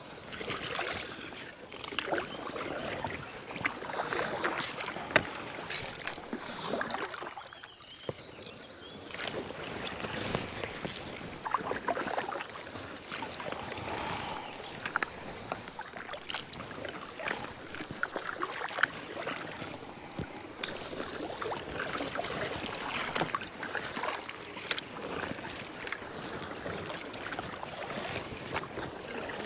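Paddle strokes on an inflatable kayak: water splashing and swishing with each stroke, with scattered sharp clicks and knocks, and a short pause about eight seconds in.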